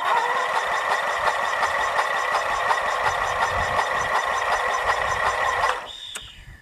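Electric starter cranking a Briggs & Stratton 13.5 hp flathead lawn tractor engine with its spark plug removed, so it spins with no compression as a steady whirring. It stops sharply about a second before the end, followed by a short click. The crank is a test of whether the engine turns faster without compression, after the cranking had seemed slow.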